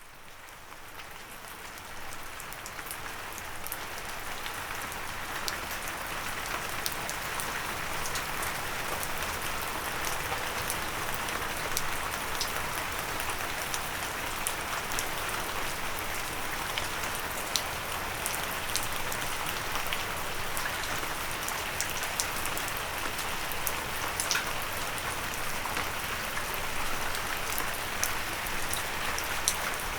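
Steady rain with many sharp individual drops ticking on a windowsill. It fades in from silence over the first couple of seconds, then holds steady.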